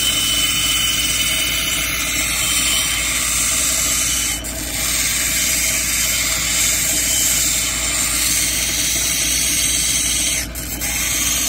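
A plume agate cabochon on a dop stick being ground against a water-fed cabbing-machine wheel, working its edge down to the traced outline. A steady grinding noise over the hum of the running machine, dropping off briefly twice.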